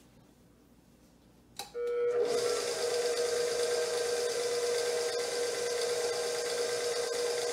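Stand mixer switched on with a click about a second and a half in, its motor then running steadily with a constant hum as it drives the pasta roller and cutter attachment.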